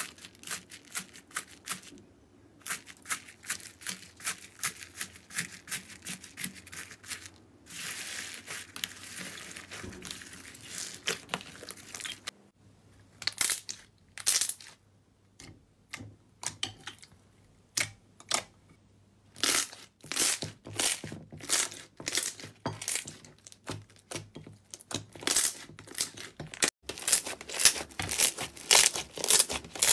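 Hands squishing, pressing and stretching slime, among them foam-bead slime, giving irregular crackling and popping clicks, denser and faster in some stretches.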